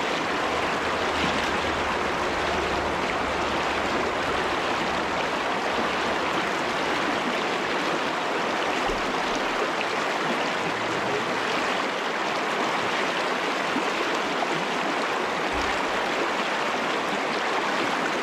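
Shallow freestone stream running fast over rocks through a riffle: a steady, even rush of water.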